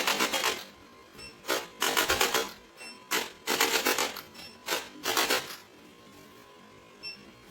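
Short bursts of a rapid mechanical buzz made of fast pulses, about eight bursts in the first five seconds, then stopping.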